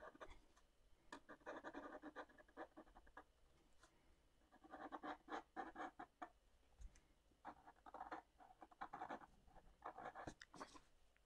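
Felt tip of a thick Sharpie marker scratching across watercolour paper as an outline is drawn: faint, in several runs of short strokes with brief pauses between.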